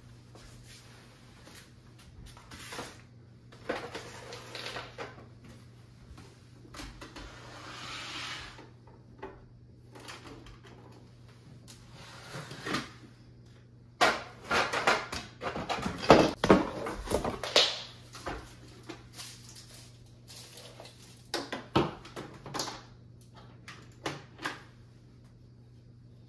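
Household items being picked up, shifted and set down on a wooden floor: scattered knocks, clatters and scrapes, with a busy, louder stretch of handling in the middle.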